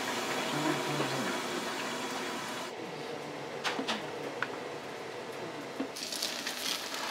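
Restaurant kitchen noise: a steady hiss that drops away about three seconds in, a few light clicks around four seconds, then gyoza sizzling on a flat griddle near the end.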